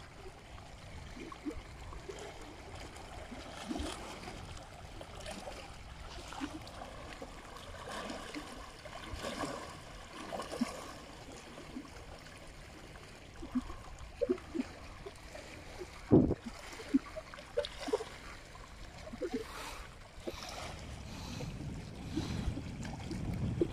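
Small waves lapping and splashing against a rocky lakeshore, with scattered light knocks of water among the stones and a sharper thump a little after two-thirds of the way through. Low rumble of wind on the microphone rises near the end.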